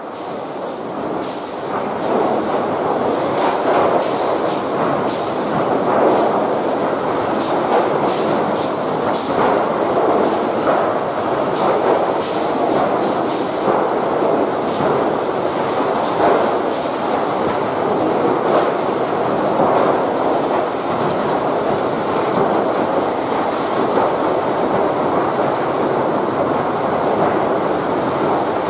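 Automated lumber stacking machinery running: a steady loud mechanical din of conveyors and drives, with a quick run of sharp metallic clicks and rattles through the first half that thin out later.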